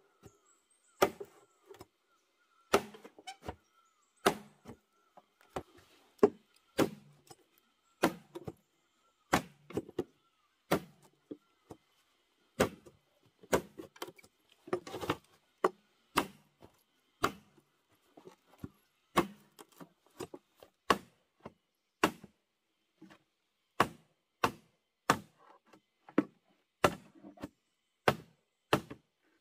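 Machete blade striking a thick bamboo tube again and again, cutting lengthwise slits along it, with sharp knocks at about one a second.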